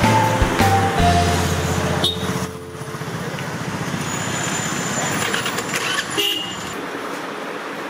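Street traffic noise with vehicle horns honking during the first two or three seconds, then a steady din of traffic.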